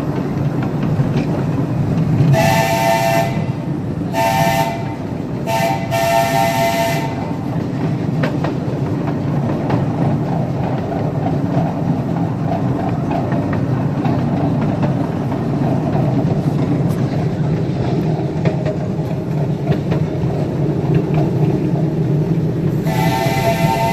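Live steam locomotive's chime whistle sounding four blasts, long ones at the start and end of the group, over the steady rumble and clatter of the train running on the track; another whistle blast begins near the end.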